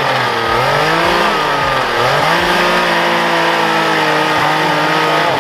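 Snowmobile engine revving up and down, its pitch dipping and climbing several times.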